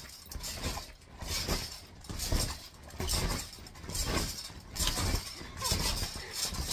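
Trampoline mat and springs sounding with each bounce as two people jump, a rhythmic pulse about once a second.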